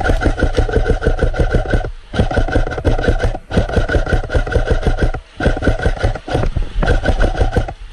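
Airsoft electric gun firing on full-auto in five bursts of one to two seconds, a rapid even rattle of shots over the steady whine of its motor and gearbox.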